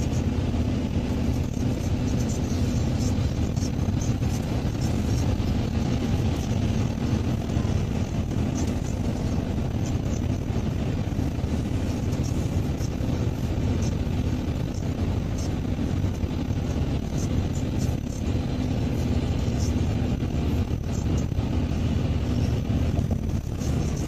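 Car running at steady speed, heard from inside the cabin: a steady low rumble of engine and tyres on the road.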